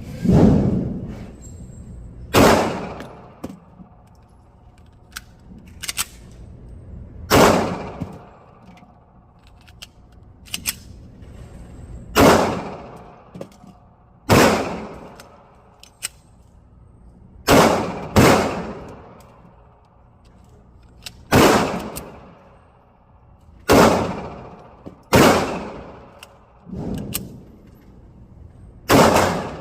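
9mm pistol fired in slow single shots: about a dozen sharp reports one to three seconds apart, each ringing out for about a second, with fainter clicks between some of them.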